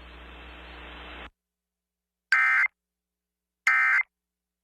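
Faint broadcast hiss that cuts off about a second in, then two short, identical Emergency Alert System (SAME) digital data bursts about a second and a half apart. These are the end-of-message (EOM) tones that close an EAS warning.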